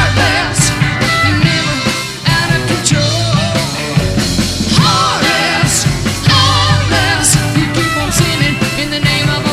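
Live hard-rock band playing with a woman singing lead over electric guitars, bass and drums with cymbal crashes, in an old live recording of modest audio quality.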